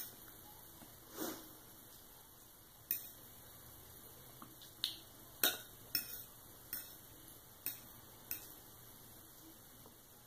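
Metal fork tapping and scraping on a plate while scrambled eggs are cut and scooped up: a string of short, irregular clinks, roughly one a second.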